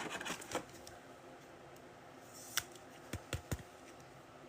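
Trading cards being handled on a table: soft rustling at the start, then a few light clicks and taps a little after halfway.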